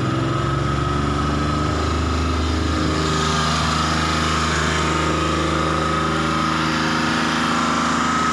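An old van's engine idling: its speed rises briefly at the start, shifts a little a couple of seconds in, then holds steady, with a steady high whine alongside.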